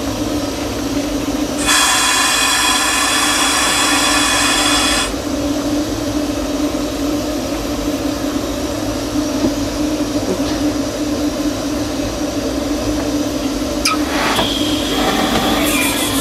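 Cab of a 1925 Baldwin steam locomotive under way, with a steady running rumble. About two seconds in, a loud steam hiss lasts for about three seconds. Near the end a second high hiss with a thin steady whine starts.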